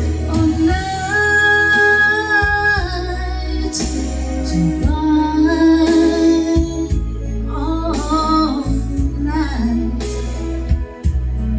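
A Christmas song: a singer holding long notes over instrumental backing with a steady bass line.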